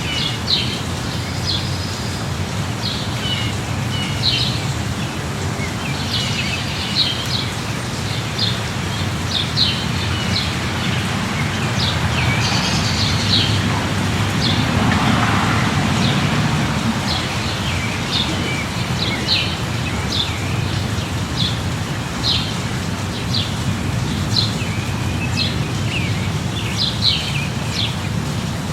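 Steady light rain hiss with birds chirping over it, short high chirps repeating every second or so. A louder swell of noise rises and fades for a few seconds near the middle.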